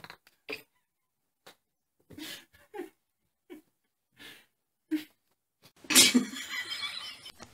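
A woman's stifled laughter: a string of short, breathy snorts and gasps with silence between them. A louder, longer burst follows about six seconds in.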